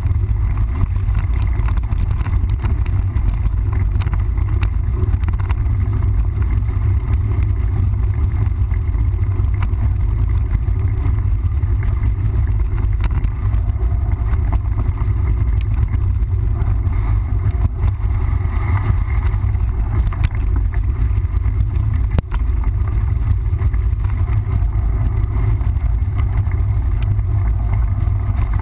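Steady low rumble of wind buffeting the camera microphone and tyres rolling over the trail as a mountain bike is ridden, with occasional faint clicks and knocks.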